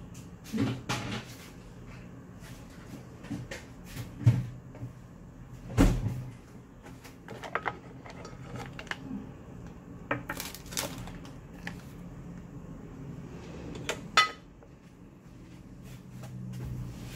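Kitchen handling sounds: scattered knocks, clicks and clatters of jars, containers and utensils being picked up and set down, over a low steady hum. The loudest knocks come about 4 and 6 seconds in, and a sharp clack near the end rings briefly.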